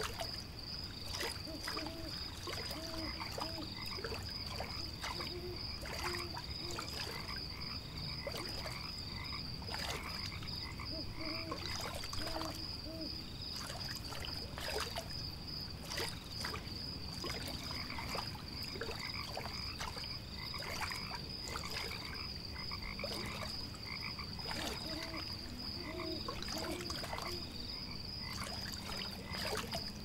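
Frogs croaking in short repeated series, over a steady high-pitched pulsing trill and scattered light clicks.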